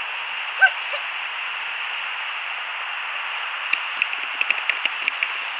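Handheld butane torch hissing steadily, with a run of sharp clicks and crackles starting about four seconds in.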